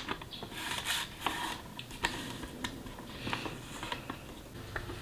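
Paper being handled and cut on a sliding paper trimmer: rustling paper and the blade carriage running along its rail, with light taps and clicks.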